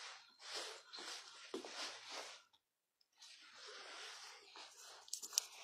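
Faint rustling and handling noise from a handheld phone carried while walking, coming in short bursts about every half second. It drops out entirely for about half a second midway, and a few sharp clicks come near the end.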